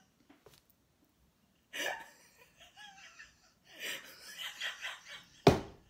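A woman laughing in short, breathy bursts after a quiet start, with a sharp, loud thump near the end.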